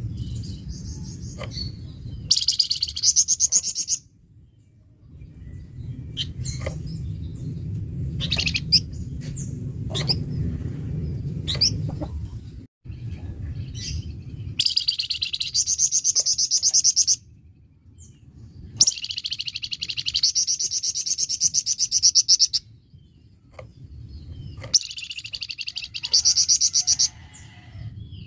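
Flamboyan songbird singing its fast, harsh burst song ('besetan'): four dense, rapid trills of two to four seconds each, with short single chirps between them, over a low background rumble.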